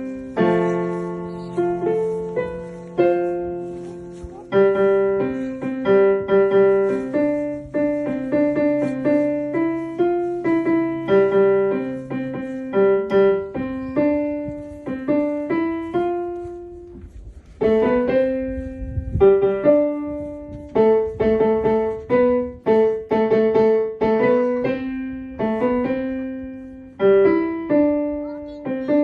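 Piano music: a flowing run of struck notes, each ringing and fading, with a brief pause about 17 seconds in.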